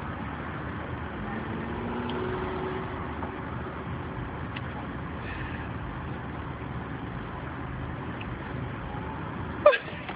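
Steady road and engine noise inside a moving car's cabin. Near the end a brief, loud sound sweeps quickly downward in pitch.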